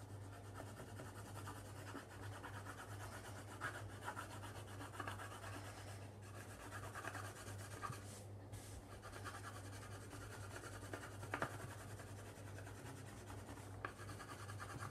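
Colour pencil shading on paper in quick back-and-forth strokes, a faint continuous scratching with a couple of short pauses, as blue is faded across a large area.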